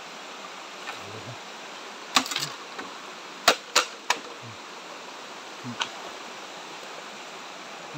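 Shallow rocky stream running steadily, with a handful of sharp snaps and cracks, likely dry bamboo twigs and leaf litter breaking underfoot, clustered around the middle, the loudest about three and a half seconds in.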